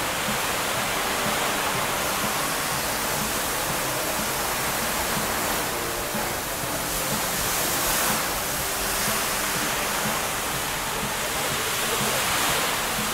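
Indoor fountain: a curtain of water falling from height into a pool, making a steady rush and splash of water.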